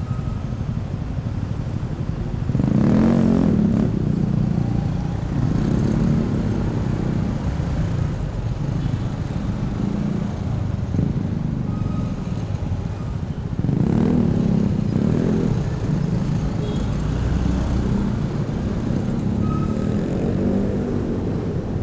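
Motorcycle engine running under way in slow, close traffic, with the noise of surrounding vehicles. The engine swells louder as it picks up speed, most strongly about three seconds in and again about fourteen seconds in.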